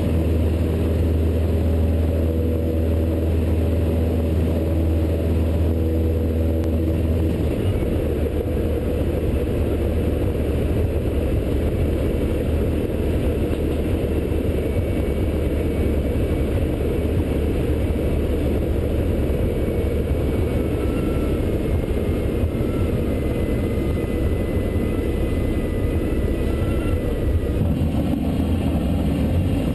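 Engine and propeller of a small single-engine piston trainer plane droning inside the cabin during touch-and-go practice. The hum is steady and even for the first several seconds. About seven seconds in it turns into a rougher rushing noise, and the low rumble shifts again near the end.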